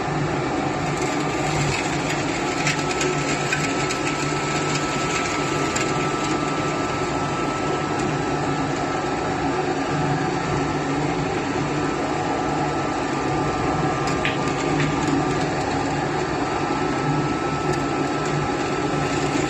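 Charcoal briquette extruder machine running steadily, a constant motor hum with a thin high whine, as it pushes out a hexagonal charcoal briquette log.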